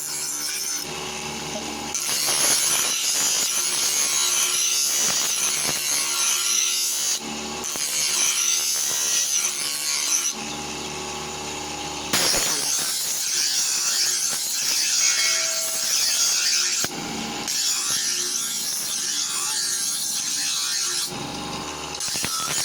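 Steel knife blade being ground or sharpened against an abrasive: a steady gritty hiss in long stretches, broken every few seconds by short quieter spells.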